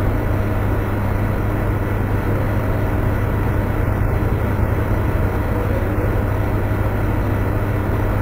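A steady low hum with a constant rushing noise over it.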